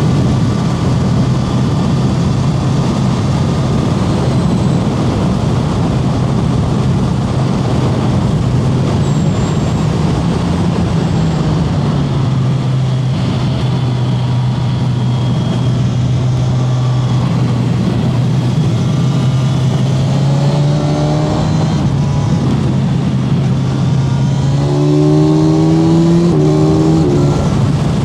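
Kawasaki Z1100 SE's air-cooled inline-four engine running at a steady, even pitch, then picking up revs twice in the last several seconds, growing a little louder.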